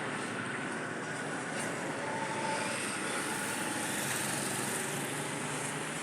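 Steady town-street traffic noise: motor vehicles running, with one seeming to swell past about four seconds in.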